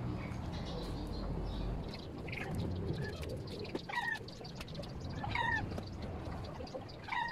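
Short animal calls, four of them about a second and a half apart, over a low rumble in the first two seconds.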